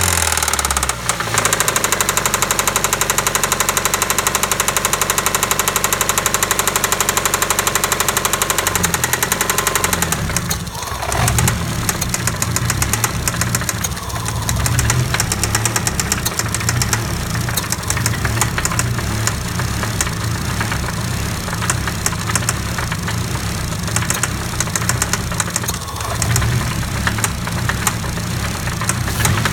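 Ford Fiesta 1.25 petrol four-cylinder engine running with a rattling clatter; its note drops about ten seconds in and then runs on steadily.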